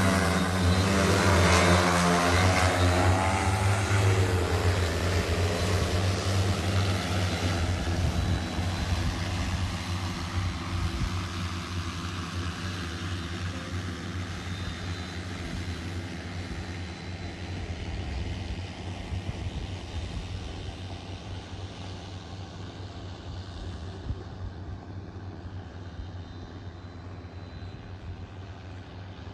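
Joyance 16L multirotor agricultural sprayer drone's propellers humming loudly close by, the pitch wavering in the first few seconds. The sound then fades steadily as the drone flies off across the field.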